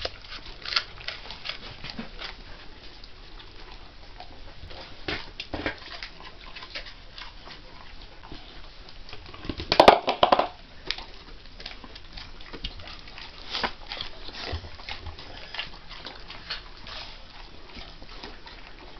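A dog chewing and crunching pieces of apple, in scattered short crunches, with a louder burst of sound about halfway through.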